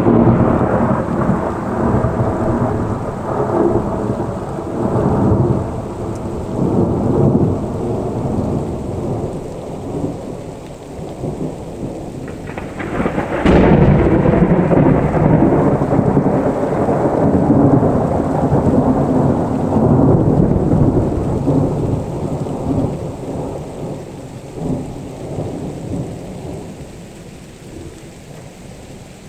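Thunder: a rolling rumble dies away, then about halfway through a sharp close crack sets off another long rumble that slowly fades out.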